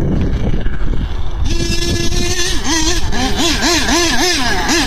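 Small fuel engine of an RC truck buzzing at high revs, coming in about a second and a half in, holding steady, then rising and falling quickly about three times a second as the throttle is worked. Before it comes in there is a low rumble.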